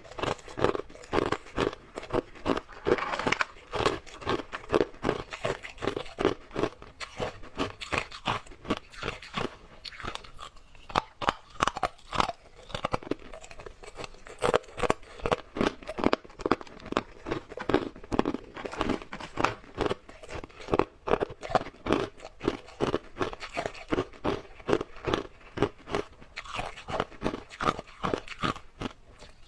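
Hard ice being bitten and chewed close to the microphone: rapid, dense crunching, several crunches a second, thinning briefly about ten seconds in.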